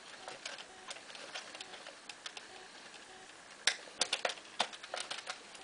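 Small irregular plastic clicks and taps as the night sensor wire is pressed into the cuckoo clock's quartz movement, faint at first, then sharper and louder in the last couple of seconds.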